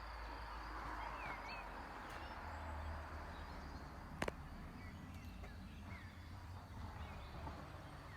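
Faint outdoor ambience: small birds giving a few short, scattered chirps over a low steady rumble, with one sharp click about four seconds in.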